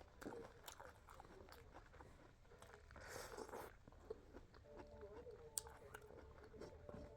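Faint eating sounds: small clicks of chewing and biting, with a louder crunchy bite about three seconds in. Faint background music with held notes comes in during the second half.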